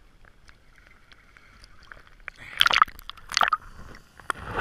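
Sea water sloshing and splashing over a camera's waterproof housing as it bobs at the surface: faint for about two seconds, then three short splashy bursts.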